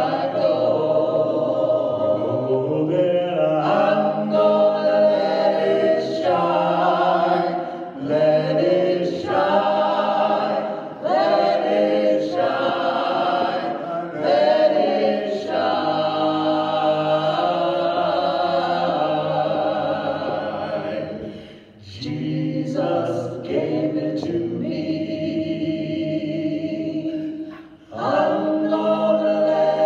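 A choir singing a hymn in sustained phrases, with two short breaks between phrases in the last third.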